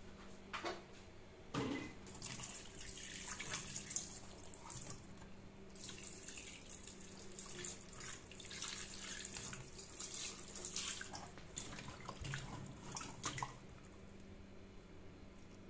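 Tap water running into a steel bowl of fish in a stainless steel sink, with irregular splashing and small knocks as the fish are rinsed and turned by hand. It dies down about 13 seconds in.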